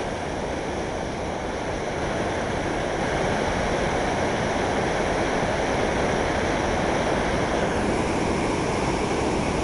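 Turbulent river water churning and rushing over rocks below a dam: a steady rushing noise.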